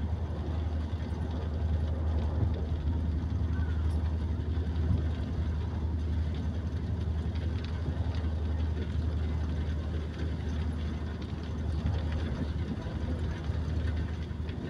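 Steady low rumble and running noise of a moving passenger train, heard from inside the coach.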